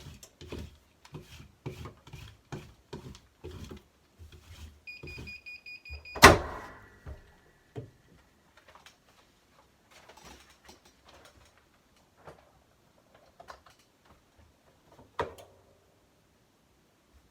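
Digital heat press timer beeping for about a second, then a loud clunk as the press is opened at the end of its cycle; a run of light ticks, about two a second, comes before it, and scattered quieter knocks follow, with one more distinct knock near the end.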